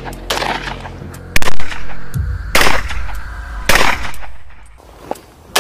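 Armsan 612 semi-automatic 12-gauge shotgun fired several times, roughly a second apart, the loudest shot about a second and a half in, over background music.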